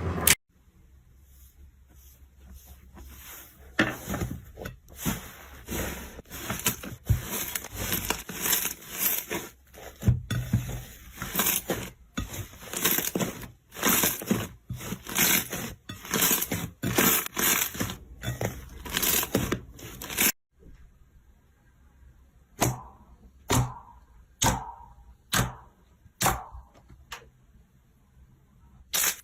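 Slime being squeezed and pressed by hand, crackling and clicking in quick repeated bursts. Past the middle it gives way to about ten separate squelchy pops, roughly a second apart.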